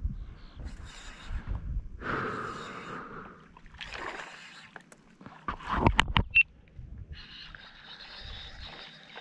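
Sloshing and splashing of shallow water in bursts, with a sharper, louder cluster of splashes about six seconds in.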